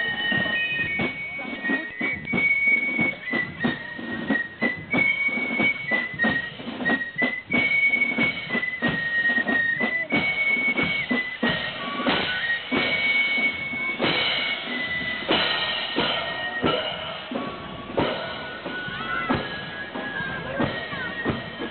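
Marching band playing: a high, flute-like melody of held notes stepping up and down over a steady drum beat.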